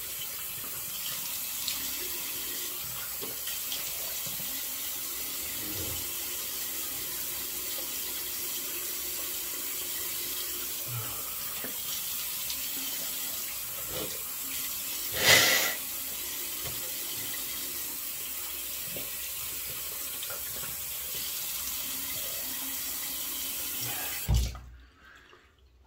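Bathroom sink tap running steadily for a rinse between shaving passes, with one louder splash partway through. The water stops abruptly near the end, just after a thump.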